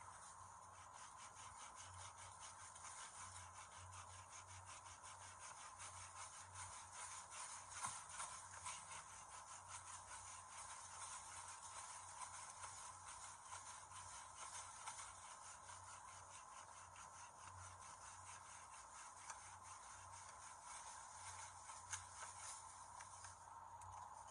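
Faint, rapid scraping of a knife blade working a fallen wooden branch, a dense run of small scrapes that stops about a second before the end.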